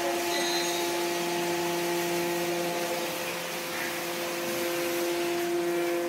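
Full-automatic horizontal baler running, a steady hum of several held tones over an even hiss, with its conveyor feeding shredded paper into the press.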